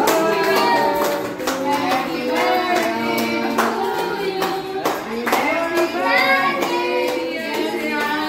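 People singing together, with clapping on a steady beat.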